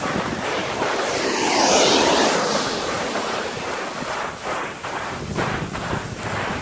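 Rushing hiss of a sandboard sliding fast over loose volcanic gravel, swelling loudest about two seconds in, then breaking into uneven scraping pulses, with wind buffeting the microphone.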